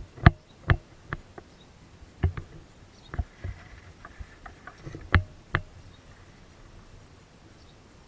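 A series of sharp knocks and clicks at uneven intervals, some in quick pairs, stopping about five and a half seconds in.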